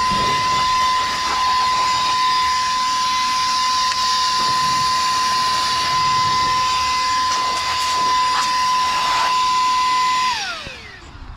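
Saker cordless mini vacuum cleaner running as a blower: a steady high motor whine over rushing air. About ten seconds in it is switched off and the whine falls away as the motor spins down.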